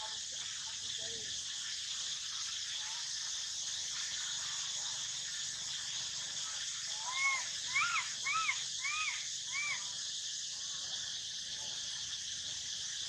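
A baby macaque gives five short crying calls about seven seconds in, each one rising and then falling in pitch. A steady high insect drone runs underneath.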